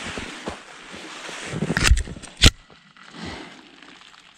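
Spruce branches rustling and scraping close by as they are pushed through and handled, with two sharp cracks about two seconds in, the second the loudest, like twigs snapping.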